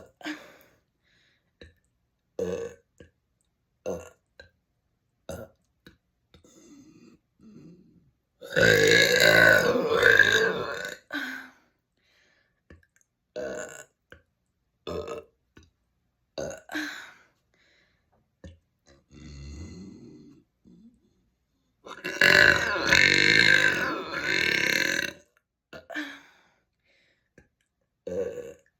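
A person burping over and over: a string of short burps every second or so, and two long, loud, drawn-out belches, one about eight seconds in and one about twenty-two seconds in.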